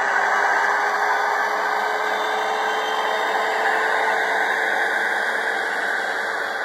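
HO scale model electric locomotive (CMR Trainline 8K, a VL80 type) running past: a steady rushing noise from its motor and wheels on the track, with a faint motor whine that rises slowly in pitch.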